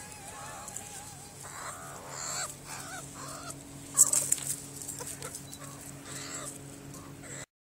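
Meerkats calling close by: a run of short, wavering chirps and peeps, one after another. A sharp knock sounds about four seconds in.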